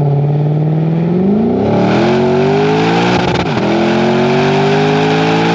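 Lexus GS-F's naturally aspirated 5.0-litre V8 with a Revel Medallion (Tanabe) axle-back exhaust, accelerating. The engine note rises quickly about a second in, then keeps climbing steadily, with a brief break about three seconds in.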